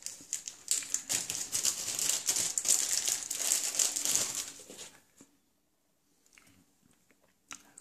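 Crinkly packaging rustling and crumpling for about four seconds as the new cam chain tensioner spring is unwrapped, then stopping, with a light click near the end.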